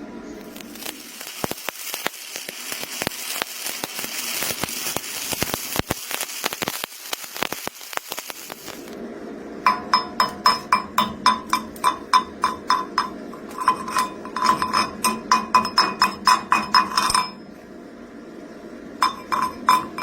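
Welding arc crackling and hissing for about eight seconds, then a rapid series of sharp, ringing metallic strikes, like a chipping hammer knocking slag off a welded steel pipe joint, with a few more strikes near the end.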